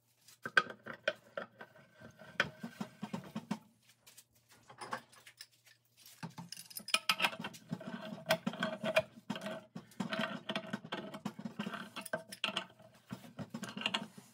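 Black iron gas pipe being screwed into a cast iron floor flange by hand and with a pipe wrench: metal threads grinding, the wrench clicking and scraping on the pipe in many small metallic clicks. There are two spells with a pause of about two seconds between them.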